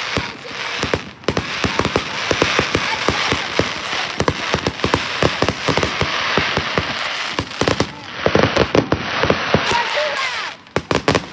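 A dense barrage of fireworks going off: many sharp bangs and pops a second over continuous crackling, with a brief lull about a second in and a thinner patch near the end.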